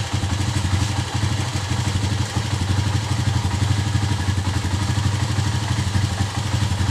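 Tricycle's motorcycle engine idling steadily just after starting on one kick. The quick start shows the hard starting is cured by cleaning the dirty air cleaner.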